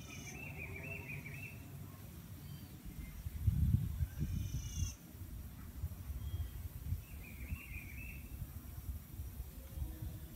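Wild birds calling: a warbling phrase twice, about seven seconds apart, and a higher call of quick repeated notes in between. Under them a low rumble on the microphone, loudest around four seconds in.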